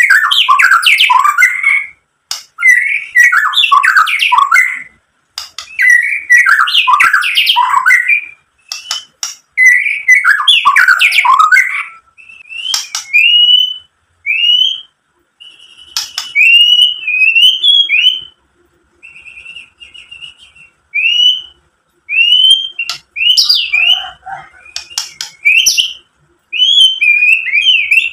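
White-rumped shama singing: dense, rapid phrases of varied whistled and harsh notes for about twelve seconds, then a run of short, separate rising whistles, then mixed phrases again near the end.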